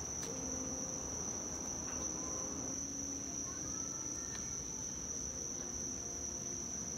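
Insects trilling without a break, one steady high-pitched tone, with a few faint ticks from the wood being handled.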